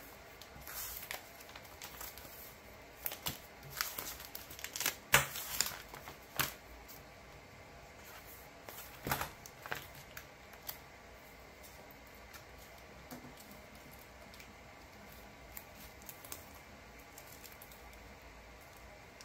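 Photocards and plastic binder pages being handled: crinkling with light clicks and taps, busiest about five seconds in and dying away to faint hiss about halfway through.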